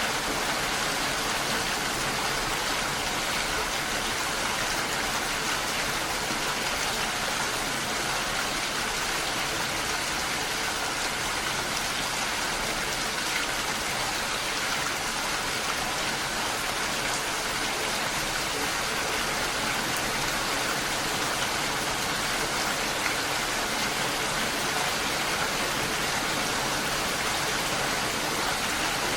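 Steady rain falling, an even hiss of drops without individual impacts or changes.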